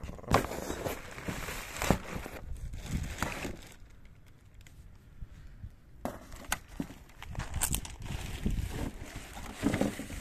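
Protective plastic wrapping rustling and crinkling as a car grille is unwrapped by hand, with a few sharp clicks. It goes quieter for a couple of seconds midway.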